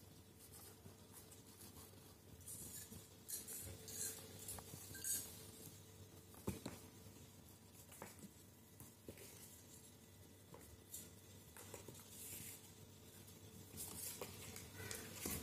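Two kittens play-fighting on and against a cardboard box, their claws scratching and paws patting on the cardboard and rope: faint scattered scratches and soft knocks, busiest around three to five seconds in and again near the end.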